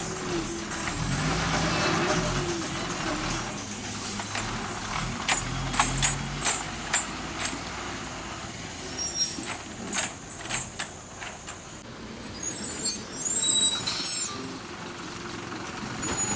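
Heavy road vehicles running over a broken, potholed road, with a series of sharp knocks and rattles in the middle. Near the end, brakes squeal loudly in high, wavering tones.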